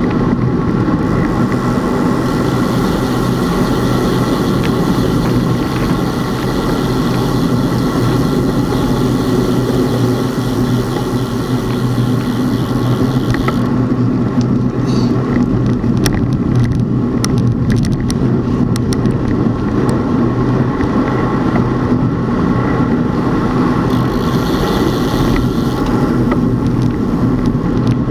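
Steady running noise of a motor vehicle: an even engine hum over road and wind noise, with a scatter of short clicks and knocks in the middle.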